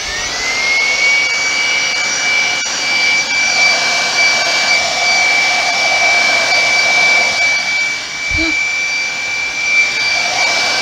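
Hair dryer run on its low setting: the motor spins up with a quickly rising whine, then holds a steady whine over a rush of blowing air. A short low knock comes about eight seconds in as a cup of paint is tipped over.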